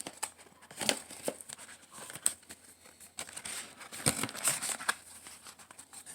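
A small cardboard box being opened by hand and its paper packaging handled: irregular crinkling and rustling with several sharp taps and clicks.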